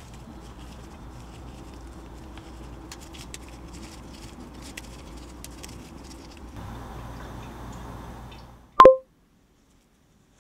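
Light crackling and scattered small clicks of gloved fingers breaking graham-style crackers into pieces over a plastic pudding cup, against a faint steady room hum. Near the end a single short, loud tone sounds, then the sound drops away.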